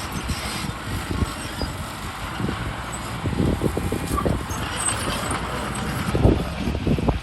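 Heavy vehicle engine running, a dump truck or earthmover, with an uneven low rumble.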